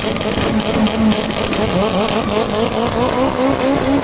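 Toyota MR2 drag car accelerating hard away down the drag strip, its engine note climbing again and again as it runs up through the gears.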